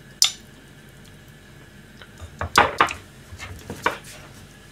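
Metal ladle clinking against a metal soup pot and a porcelain bowl as soup is served, and the bowl set down on a steel counter: one sharp clink just after the start, then a quick run of knocks and clinks about two and a half seconds in, and a few lighter ones after.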